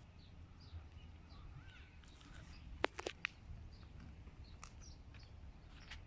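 Faint birds chirping now and then over a low steady rumble, with a few sharp clicks a little before halfway.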